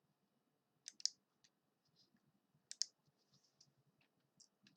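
Near silence with a few faint, sharp clicks: two about a second in, another near three seconds, and softer scattered ticks between.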